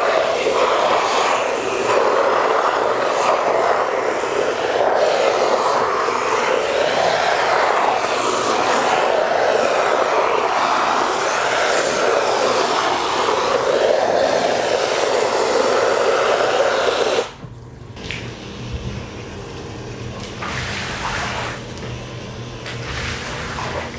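Pressurised water spraying from a cleaning wand onto a soaked rug: a loud, steady hiss that wavers as the jet moves across the pile. About two-thirds of the way through it stops suddenly. It gives way to a much quieter low hum, with faint sounds of a squeegee pushing water over the rug.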